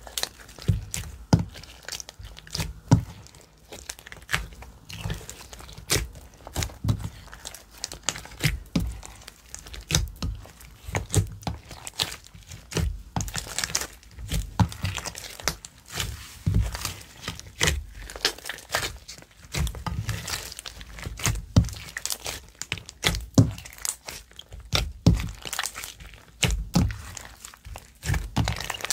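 Slime being squeezed, poked and kneaded by hand: irregular sticky pops, clicks and crackles with soft low thuds, continuing without a break.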